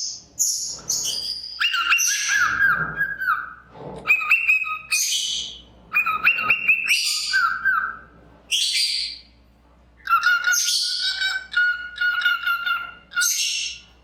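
Cockatiel calling in bursts: harsh, raspy screeches mixed with short whistled, warbling notes, with brief pauses between bursts and a longer quiet gap a little past the middle.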